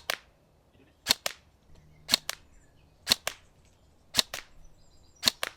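Tokyo Marui Next Generation Recoil Shock electric airsoft rifle firing single shots about once a second, five or six in all. Each shot is a sharp crack followed closely by a second, fainter click.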